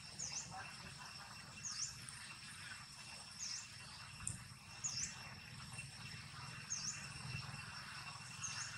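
Insects droning steadily, with a bird repeating a short, high, down-and-up chirp about every second and a half, six times.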